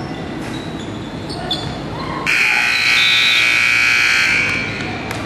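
Gym scoreboard buzzer sounding once for about two seconds, cutting in sharply about two seconds in and then trailing off, over the scuff and bounce of a basketball game.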